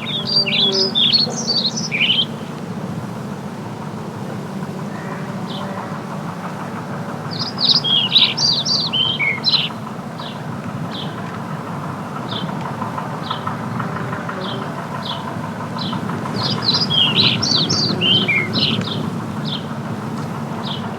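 A songbird singing three quick runs of high notes, about 2 s each: near the start, about 8 seconds in and about 17 seconds in. Between the later runs it gives single short notes about once a second. Under the song there is a steady low rumble.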